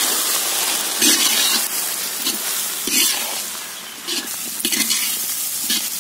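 Grated carrot and egg stir-frying in a large iron kadai, sizzling steadily, while a metal ladle scrapes across the pan in repeated stirring strokes.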